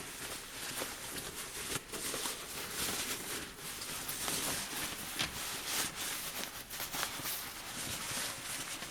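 Backpack fabric rustling and scraping, with many small clicks, as a seam is opened with a seam ripper.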